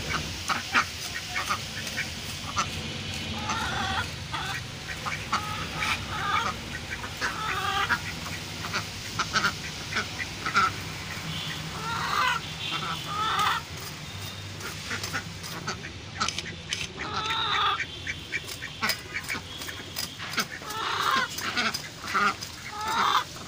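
Domestic poultry calling in short, repeated squawks every second or two, over sharp scraping clicks as a large fish's scales are scraped off against an upright boti blade.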